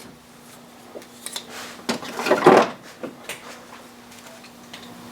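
Ignition coil packs from a BMW 325xi's inline-six being handled and set down: a run of hard plastic clicks and clunks, the loudest cluster about two seconds in.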